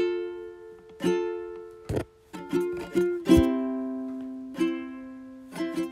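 Background music: a plucked-string instrument playing a pattern of picked notes and strums that ring and die away.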